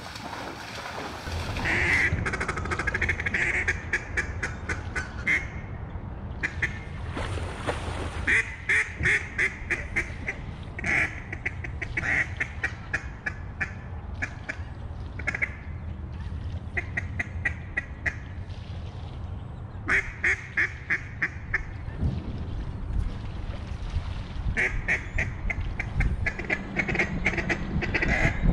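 Duck quacking in fast runs of short notes in the manner of a mallard hen, coming in bursts every few seconds, over a low steady rumble.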